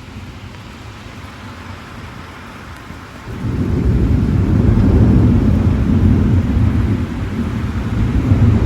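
Rain falling with a steady hiss; about three seconds in a long, loud, low roll of thunder sets in and keeps rumbling.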